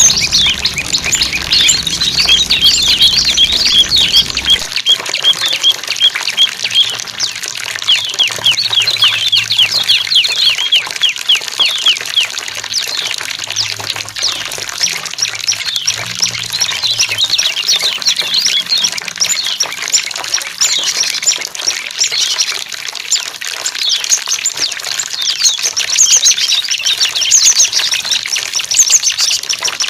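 Small songbirds chirping and trilling in quick, dense runs of short notes, several a second, over a steady trickle of running water.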